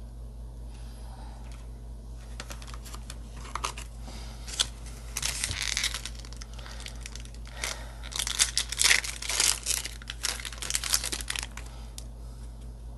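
A foil trading-card booster pack being torn open and its wrapper crinkled, in irregular bursts that start about two seconds in and are loudest past the middle.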